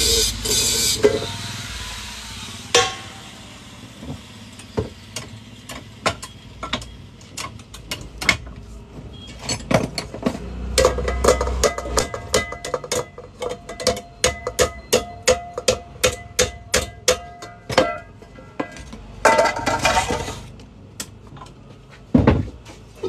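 An angle grinder on a metal pan cuts off about a second in. It is followed by a long series of sharp hammer knocks on the pan's metal, about three a second, with a ringing tone through the middle stretch. A brief burst of noise comes near the end.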